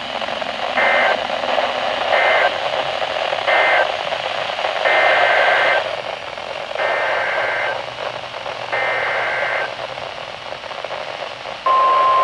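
Weather-radio static with Emergency Alert System SAME data bursts: three short warbling bursts that close the warning just read, then three longer bursts that head the next alert. About a second before the end, the steady single-pitch NOAA Weather Radio warning alarm tone starts and holds.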